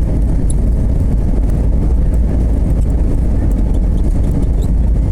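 Steady low rumble inside an Airbus A321's cabin: engine and airflow noise heard from a window seat.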